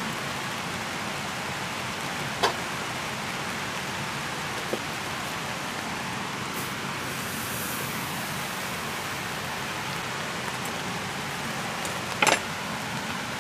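A skillet set down on the wire grate of a charcoal mini shichirin, a sharp clink about two and a half seconds in and a louder double clink near the end, over a steady, even hiss.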